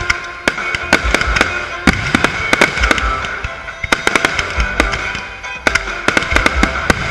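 Fireworks display: a rapid, irregular run of sharp bangs and crackling reports, dozens of them with hardly a pause.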